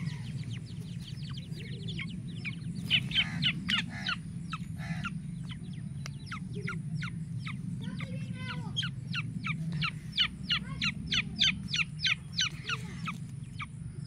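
Black francolins calling in series of short, high chirps, several a second: a burst about three seconds in, then a longer run from a little past the middle nearly to the end. A steady low hum runs underneath.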